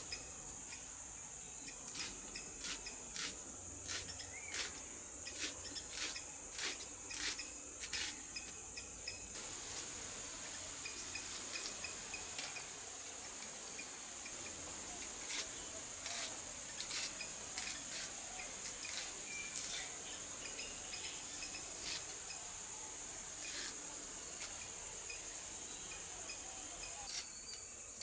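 Red onions being sliced by hand with a knife: crisp cuts every second or so for the first nine seconds, then more scattered cuts, over a steady high insect drone.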